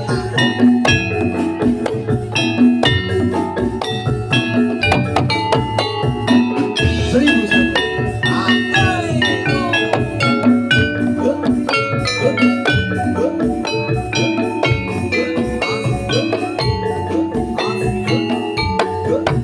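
Javanese gamelan music accompanying a Jathilan horse dance, amplified through a sound system: metal-keyed percussion strikes rapid notes over a steady drum beat.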